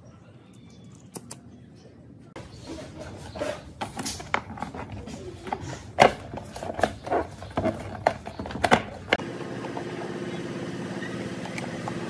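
Clicks and knocks of hard plastic fan-base parts being handled and a plastic back cover pressed into place, the loudest knocks about six and nine seconds in. Then a steady low hum takes over.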